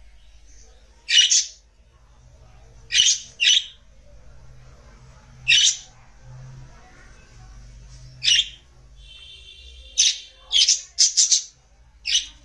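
Budgerigars giving short, harsh chirps and squawks, about ten calls at irregular intervals, several in quick succession near the end, with a brief pitched warble just before that run.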